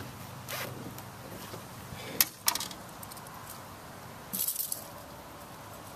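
Two sharp knocks of handling on the boat, then a brief splash about four seconds in as the bass is lowered over the side into the water.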